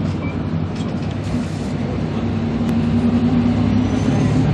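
Engine drone and road noise heard inside a moving vehicle. The engine note rises a little in the second half.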